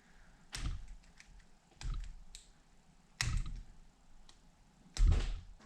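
Several separate sharp plastic clicks and knocks as a magnetic YJ MGC Square-1 puzzle is handled to change its tiles. The loudest comes near the end.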